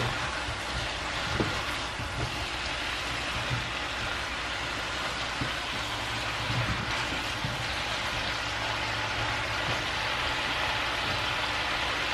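Broccoli, cauliflower and carrot sizzling in a hot frying pan as they are stir-fried: a steady hiss, with a few soft knocks of a spatula against the pan.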